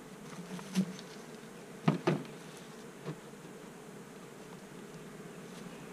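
Honeybees buzzing around an open hive, a faint steady hum, with a few short knocks, the loudest a pair about two seconds in.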